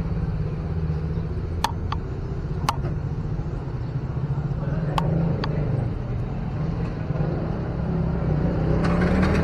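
Street ambience of a busy town road: a steady low traffic rumble with a few sharp clicks, growing louder near the end.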